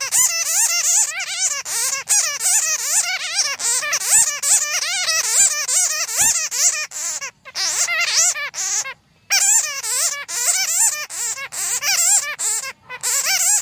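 Bats chattering: a dense, loud stream of squeaky, rapidly warbling calls, broken by short pauses a few times. This is a bat call recording of the kind played as a lure for trapping bats.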